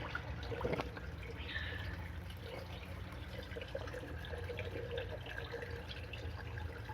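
Water trickling and dripping in an aquaponics system's plumbing and tanks, over a steady low hum, with a couple of light knocks about a second in.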